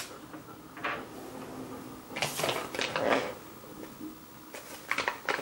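Quiet handling of small plastic toy pieces: soft rustling and a few light clicks near the end as pieces are set down on a plastic shelf.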